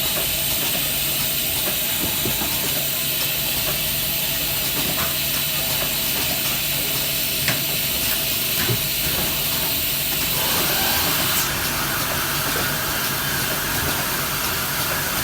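Automatic tape-cutting machine running: a steady hiss over a faint motor hum, with a few single clicks. The hiss grows fuller about two thirds of the way through.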